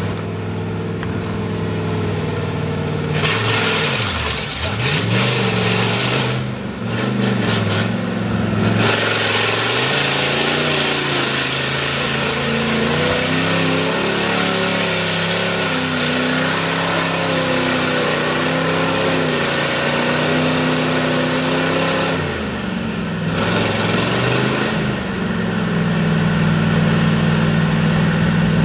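Lifted Ford mud truck's V8 with open headers revving hard in a mud bog run, the engine pitch repeatedly climbing and falling. It eases off sharply about four seconds in and again around twenty-two seconds, then is held high near the end.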